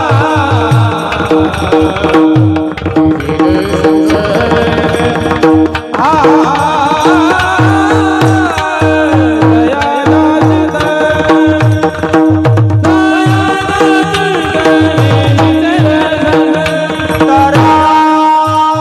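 Marathi Varkari kirtan music: a singing voice with long, wavering melodic runs over a steady held drone and a regular beat of hand-drum strokes.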